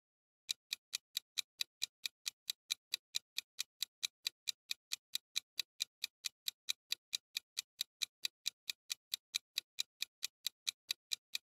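Quiz countdown-timer sound effect: clock-like ticks, evenly spaced at about four and a half a second, starting about half a second in.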